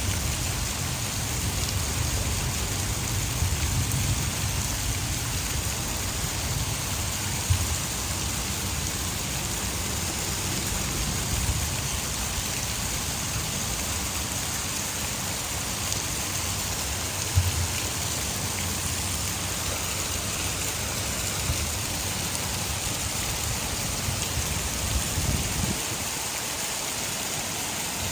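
Heavy rain falling steadily in an even hiss, with a low rumble underneath and a few brief louder taps, the sharpest about two-thirds of the way through.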